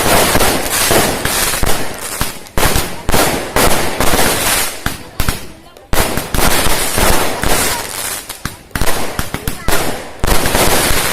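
Fireworks going off in dense, rapid volleys of sharp bangs and crackles, with a brief lull about halfway through and another near the end.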